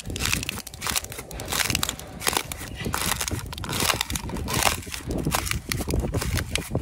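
Metal screw-in ice anchor twisted by hand into ice, the ice crunching and crackling in quick irregular cracks as it fractures around the screw.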